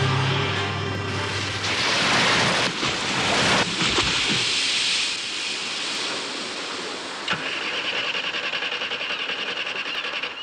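A Mini van and a Triumph Mayflower drive into the sea through the surf, with water rushing and splashing around them as their engines run. In the last few seconds a fast, even engine pulse comes forward. A song fades out about a second in.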